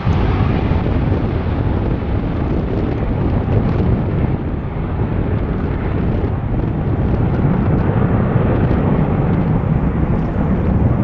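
Boeing 737 jet engines during takeoff: a steady, loud rush of noise with a deep rumble underneath.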